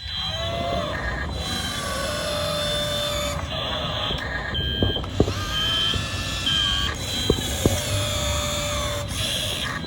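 Radio-controlled model excavator at work: its motors whine, rising and falling in pitch as the arm and bucket move, with short high beeps repeating now and then and a few sharp clicks or knocks about halfway through.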